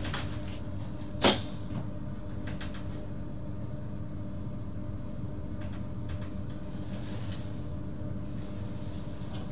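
Steady low hum of a VIRM double-deck electric train, with a few steady tones in it. One sharp click or knock about a second in stands out above it, with a few fainter clicks later.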